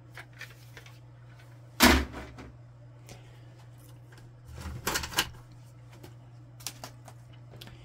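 Hard plastic printer output tray assembly being put down with a sharp clatter about two seconds in, followed by a further cluster of plastic knocks and rattles about five seconds in and a couple of light clicks near the end, over a low steady hum.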